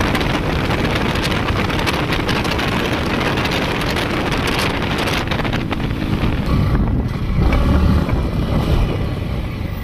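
Wind rushing over the microphone mixed with the Yamaha MT-15's 155 cc single-cylinder engine at highway speed in sixth gear, about 133 km/h. A louder, deeper rumble comes between about seven and nine seconds in, then the noise eases as the bike slows.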